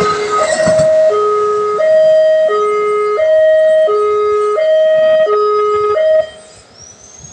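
Railway level-crossing warning alarm sounding a two-tone electronic signal, a low and a higher tone alternating about every 0.7 seconds, warning that a train is at the crossing. A passing train rumbles under it in the first second, and the alarm cuts off about six seconds in.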